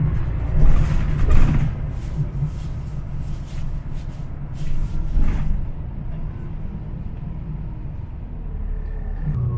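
NJ Transit bus under way, heard from inside the cabin: a steady low engine and road rumble, with a run of clicks and rattles through the first half.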